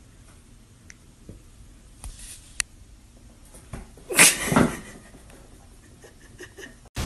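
A cat in a sweater scrambling and falling off a sofa onto a wooden floor, with a short loud cry that falls in pitch about four seconds in. A few faint taps and a sharp tick come before it.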